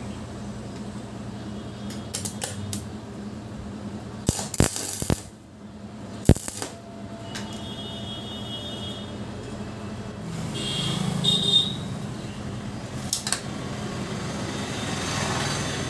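Metallic clinks and knocks of steel flat bar being handled and worked, scattered through, with the sharpest strikes about four and six seconds in, over a steady low hum.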